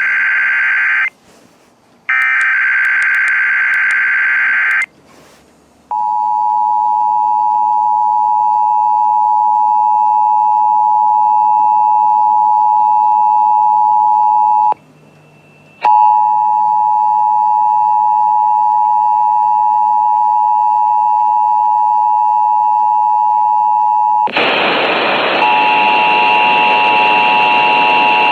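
Emergency Alert System test signal off the radio. Two digital SAME header data bursts of about three seconds each come first. Then the two-tone EAS attention signal (853 and 960 Hz) starts about six seconds in, breaks off for a second around the middle, and resumes. Near the end a loud static hiss and a higher steady tone join it.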